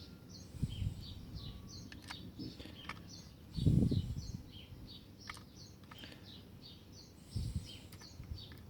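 Birds chirping steadily in the background, many short quick notes, while small metal lock parts are handled on a bench: a few light clicks and three dull knocks, the loudest about halfway through.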